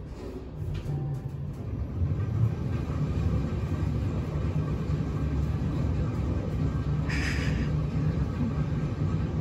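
Low, steady rumble of a hospital lift car travelling between floors, building up over the first two seconds. A brief hiss about seven seconds in.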